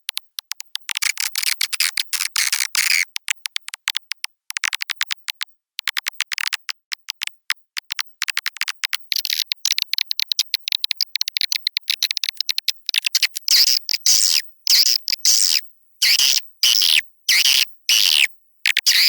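Edited swiftlet lure-call recording, played to call swiftlets into a swiftlet house: a dense chatter of rapid clicks and buzzy chirps, with nothing below a high-pitched band. From about halfway on, the chirps come in separate bursts about twice a second.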